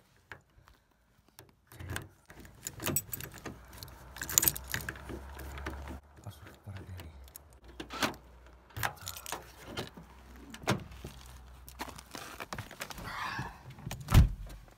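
Car keys jangling and clicking in the driver's door lock of an Opel Astra G, with handling noises, then a loud thud near the end as the door shuts.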